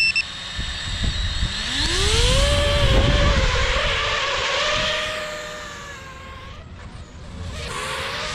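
FPV quadcopter's brushless motors spinning up: a whine that rises in pitch over the first two seconds or so, holds, eases off and then picks up again near the end. A short high beep at the very start.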